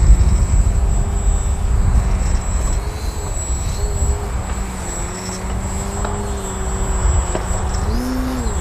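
Brushless electric motor and propeller of an ST Models MX-2 RC aerobatic airplane, with a steady tone that shifts pitch with the throttle and rises briefly near the end. Heavy wind buffeting on the microphone runs underneath, strongest at first.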